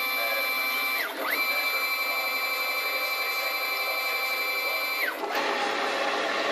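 Stepper motor on a CNC-converted Optimum BF20L milling machine whining at a steady high pitch while driving an axis move. About a second in the whine sweeps down, stops briefly and sweeps back up as the motor decelerates and accelerates. Near five seconds it sweeps down again and gives way to a rougher, noisier running sound.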